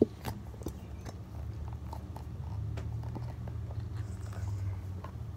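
Elmer's school glue being squeezed out of its plastic squeeze bottle into a plastic tub: a sharp click at the start, then scattered small sticky clicks and squelches, over a steady low hum.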